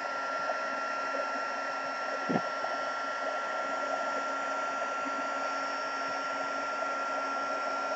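Embossing heat gun running steadily: an even fan hiss with a steady high whine, blowing hot air to melt embossing powder. A brief faint knock a little over two seconds in.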